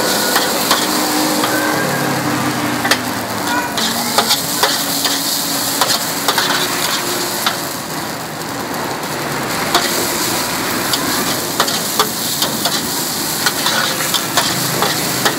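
Noodles, bean sprouts and chives sizzling on a hot, wide iron wok while being stir-fried. A metal spatula scrapes and clicks against the pan again and again over the steady frying hiss.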